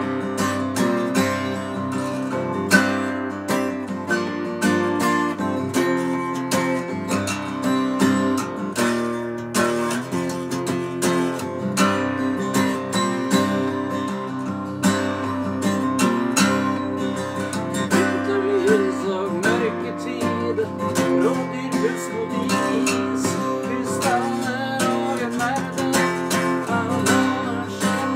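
Acoustic guitar strummed in a steady rhythm, the chords changing as it goes.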